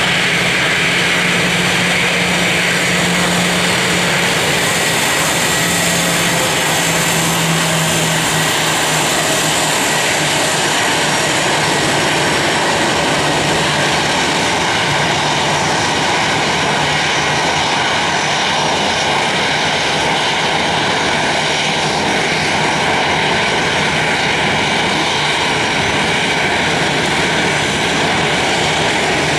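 Airbus A320's twin jet engines running at taxi power: a loud, steady engine noise. A high whine drops slightly in pitch and fades over the first ten seconds, and a low hum fades around the same time.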